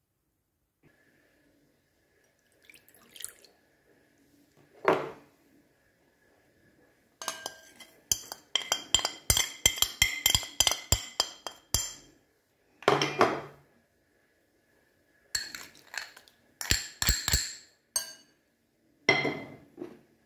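Metal spoon and glass containers clinking against a clear glass mixing bowl as dry spices are tipped in and stirred, in runs of quick sharp taps. A few softer scrapes come between them.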